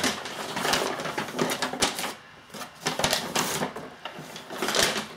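Bag and packaging being rummaged through by hand: rustling and crinkling with small clicks and knocks, in two spells with a short lull about two seconds in.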